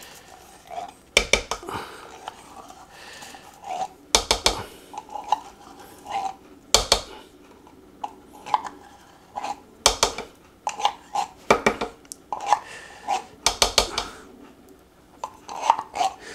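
Kitchen utensil clacking and scraping as tomato paste is scooped into a slow cooker's crock, with sharp knocks in clusters every couple of seconds.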